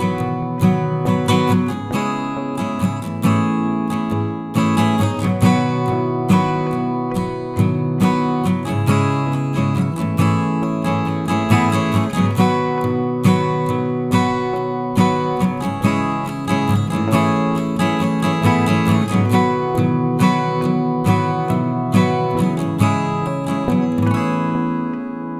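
Background music: an acoustic guitar strummed and plucked in a steady rhythm.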